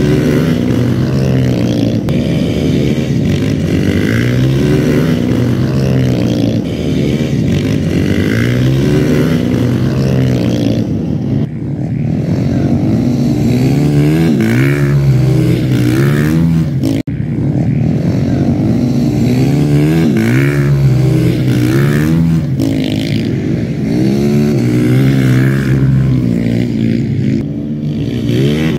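Flat-track motorcycle engines revving, the pitch rising and falling over and over about every two seconds as the bikes accelerate and back off, with a brief cut about seventeen seconds in.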